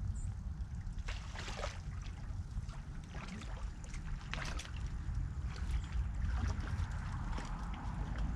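Riverbank ambience: a low, uneven rumble with scattered faint clicks and rustles.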